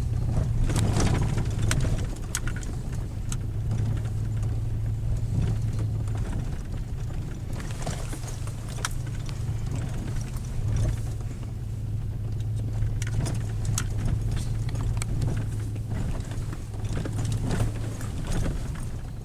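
Vehicle driving along a rough mountain road: a steady low engine and road hum with scattered clicks, knocks and rattles from the bumps.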